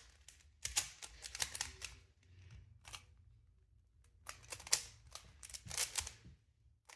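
Plastic 3x3 Rubik's cube being turned by hand: its layers click and rattle in several short bursts of quick turns, with pauses between them.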